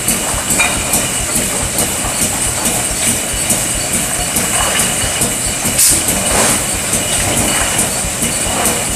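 Estes EST-P 24-head aerosol-can leak tester running at production speed: a steady mechanical clatter of cans moving through the test heads, with many quick clicks and a constant high hiss.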